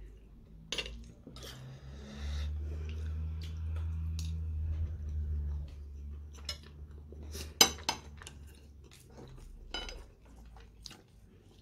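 Cutlery clicking and clinking against a dish, with chewing, during a meal. A low steady hum runs under the first half and fades out after about nine seconds.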